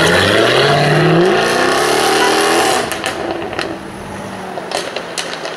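Jaguar F-Type R engine accelerating hard, its note rising steadily in pitch, then lifting off about halfway through with a few sharp exhaust pops and cracks on the overrun.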